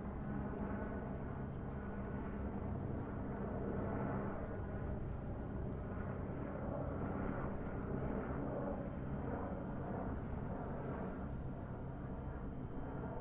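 Steady low rumble of ambient background noise with a low hum, like a recording made near running vehicles or machinery.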